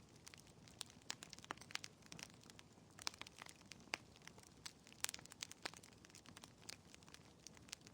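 Wood fire burning in a fireplace, crackling with irregular sharp snaps and pops, a few louder ones around three and five seconds in, over a faint steady hiss.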